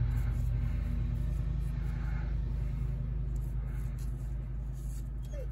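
Tractor engine running outside, a steady low rumble muffled by a closed window, slowly fading.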